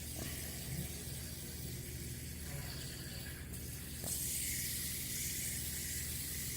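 Steady background hiss with a low hum underneath. A faint click comes about four seconds in, after which the hiss is a little louder.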